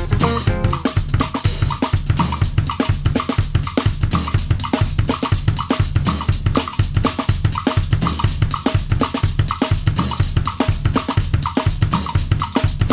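Music with a steady, fast drum-kit beat of bass drum, snare and cymbals over a heavy bass line.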